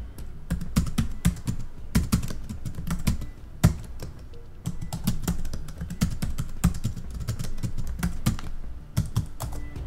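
Typing: a long run of rapid, irregular key clacks, thinning briefly about four seconds in.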